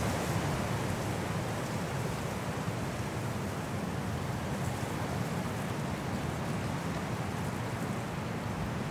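High wind blowing through trees in a snowstorm: a steady rushing noise, heavy in the low end, with no distinct gusts.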